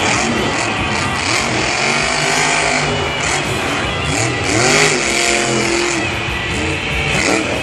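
Grave Digger monster truck's supercharged V8 engine revving up and down repeatedly as the truck drives across a dirt arena.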